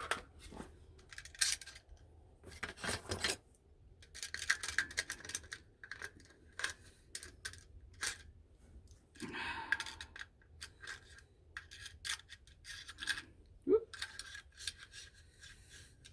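Irregular metallic clicks, scrapes and rubbing from AR-15 parts being handled while the upper receiver is swapped, with a brief squeak near the end.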